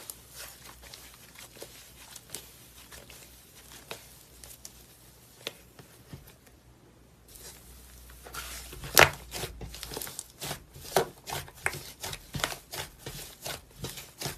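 Smoothie slime being squeezed and stretched by hand, giving scattered sticky clicks and small pops. They are sparse and soft at first and come faster and louder from about eight seconds in, with one sharp pop around nine seconds.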